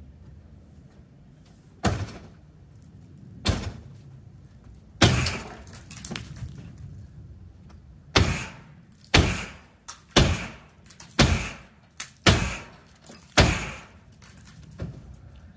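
Axe blows striking a metal-edged carport roof during demolition. There are about ten hard strikes, each with a short ringing decay: three spaced out at first, then a steady run of about one a second, and a lighter one near the end.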